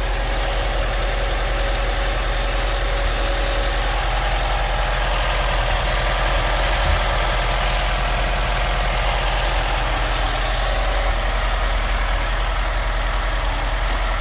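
VW T25 camper van's water-cooled flat-four engine idling steadily while it warms up, running after sitting unused for 20 years.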